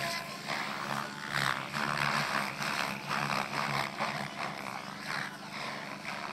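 SAB Goblin 700 radio-controlled helicopter flying 3D aerobatics: its main rotor blades swoosh in repeated surges, about three a second, over a steady hum. The swooshes ease off slightly near the end.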